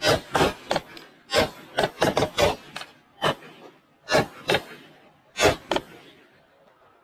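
A rapid, irregular series of sharp knocks or bangs, about a dozen, coming in quick clusters and thinning out near the end.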